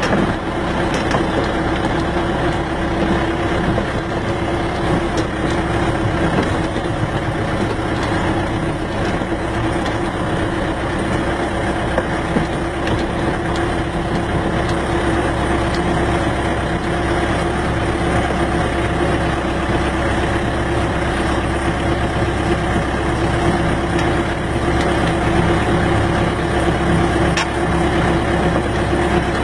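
Vehicle engine running steadily as it drives along a dirt road, heard from on board, with an even hum and no change in speed.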